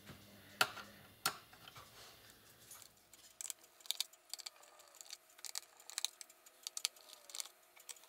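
Small screwdriver backing out the tiny screws of a Dell Inspiron 15 5578 laptop's bottom panel: two sharp clicks in the first second and a half, then a run of quick, irregular light clicks and ticks as the screws are turned and handled.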